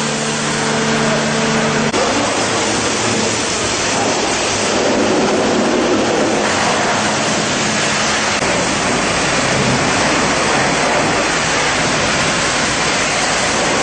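High-pressure water spraying onto trucks being washed, a loud steady hiss of water. For about the first two seconds a steady machine hum runs underneath.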